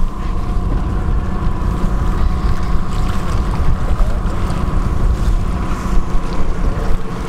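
Wind rumbling on the microphone over a fishing boat's running motor, with a faint steady whine.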